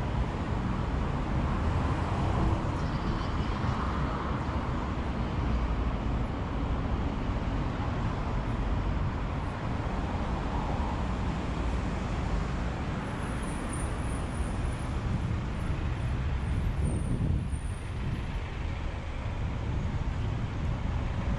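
City street traffic: cars and trucks driving past, a steady rumble of engines and tyres.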